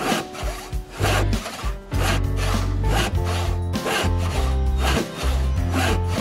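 A freshly sharpened 1886 Henry Disston & Son tenon saw cutting through a log in repeated rasping strokes, heard over background music with held bass notes.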